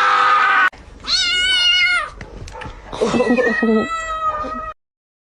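Domestic cat meowing: a drawn-out meow that rises and falls, about a second long, then a longer meow from about three seconds in that stops suddenly.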